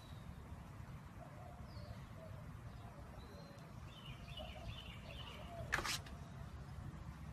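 Faint, short, high chirps over a steady low rumble, with one sharp knock about six seconds in.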